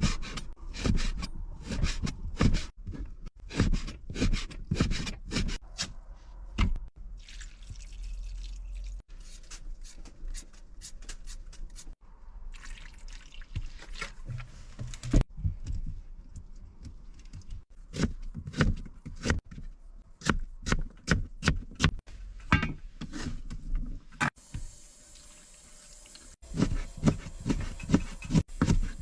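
Kitchen knife chopping beef into small pieces on a cutting board: repeated sharp knocks in quick runs with short pauses, and a brief lull near the end.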